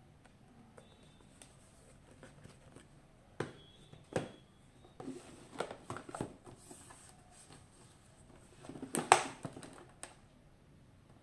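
Cardboard product boxes being handled by hand on a hard countertop: scattered soft knocks, taps and scrapes as the boxes are set down, pressed and turned over, with the loudest knock about nine seconds in.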